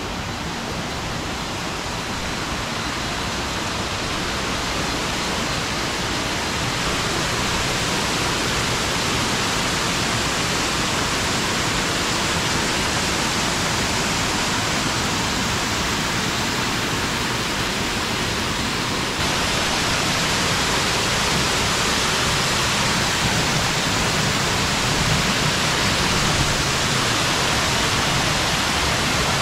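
Waterfall: a steady rush of falling water. It grows louder over the first several seconds, then steps up abruptly about two-thirds of the way through.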